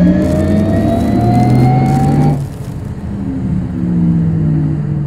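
Porsche Taycan Cross Turismo accelerating on snow: its electric drive whine climbs steadily in pitch over the hiss of tyres and spraying snow. The sound cuts off about two and a half seconds in, leaving a quieter low hum.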